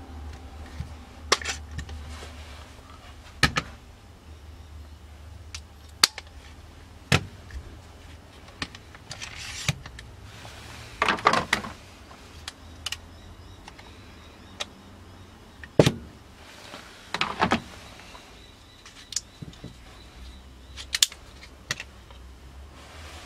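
Scattered clicks, taps and short clatters of clamps and wooden knife-handle scales being handled and set down on a workbench, with a couple of busier bursts of clatter. A low steady hum runs underneath.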